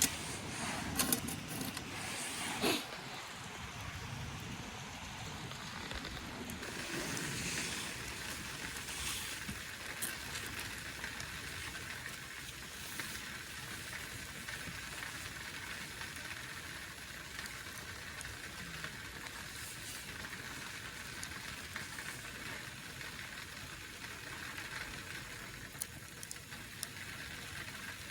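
A pot of broth boiling over a wood fire: a steady hiss of heavy boiling, with a few clicks and knocks in the first three seconds. The fire is too fierce for the gentle simmer intended.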